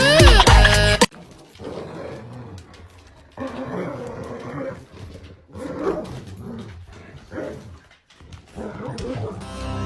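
Animal vocal sounds in short, irregular bursts with brief pauses, after music cuts off about a second in.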